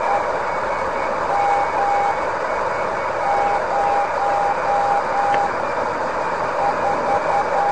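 The JAM LowFer beacon on 187 kHz comes through a DX-440 portable receiver as a Morse code tone, keyed slowly at about 5 words per minute, over a steady hiss of longwave static. The tone breaks into groups of dashes and dots with gaps of a second or more between them.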